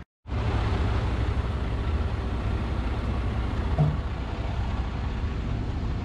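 Concrete mixer truck's diesel engine running steadily, a low rumble with a noisy wash over it. The sound starts suddenly at a cut.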